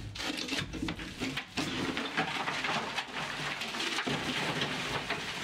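Scraping, rustling and small knocks of wooden boards and debris being handled and pulled about during demolition of a ship's interior, an irregular crackle of many small clicks.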